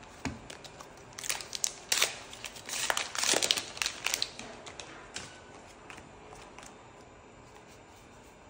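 Foil trading-card booster-pack wrappers crinkling as they are handled, in dense crackly bursts for a few seconds, followed by a few light clicks of cards being handled and sorted.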